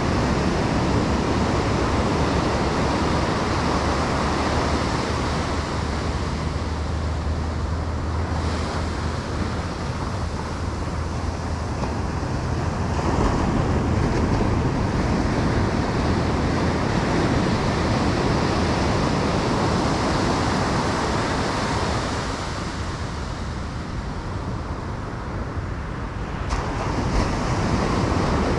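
Ocean surf breaking and washing up the beach, with wind buffeting the microphone as a low rumble. The noise swells and eases slowly with the waves, dipping for a few seconds near the end before rising again.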